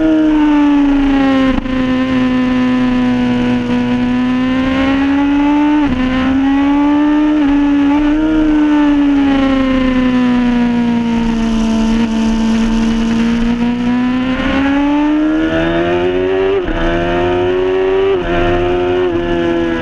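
Suzuki superstock race bike's inline-four engine under hard riding, heard from an onboard camera: the engine note sweeps up and down in long curves, with several sudden steps in pitch at the gear changes, over a steady hiss.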